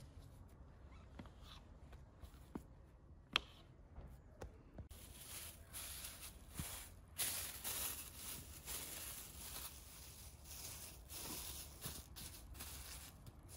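Thin plastic film rustling and crinkling as it is spread and smoothed over dough balls, in uneven crackly patches from about five seconds in. Before that, a few light clicks and taps of hands handling the dough on a board.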